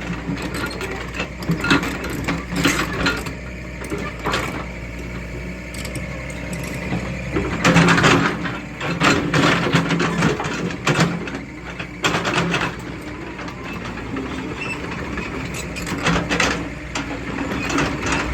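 Sunward SWE90E excavator's diesel engine running steadily, with irregular clattering and scraping bursts from the machine working, the loudest about eight seconds in.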